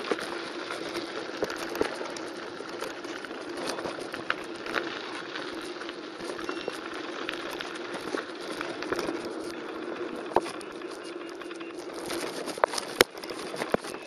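Mountain bike rolling down a dry gravel creek bed: tyres crunching over grit and small stones, with the bike rattling and knocking over bumps, and a steady hum underneath. A sharp knock stands out about thirteen seconds in.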